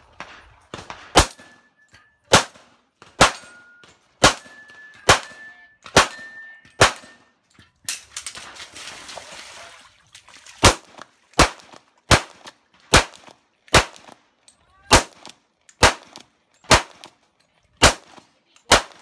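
Semi-automatic pistol firing a USPSA Limited-division stage: a string of about seventeen shots roughly a second apart, with a pause of about three seconds just before the middle. Several of the early shots are followed by a brief metallic ring of hit steel targets.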